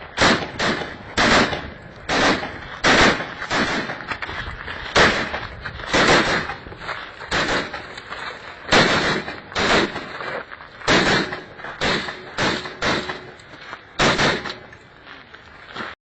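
Rifle fire on a range: about twenty single shots, irregularly spaced at roughly one a second, each with a short echo.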